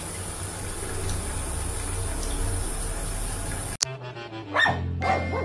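Water running from a bathtub tap, a steady rush that cuts off suddenly about four seconds in. Then a dog barking, a couple of barks near the end.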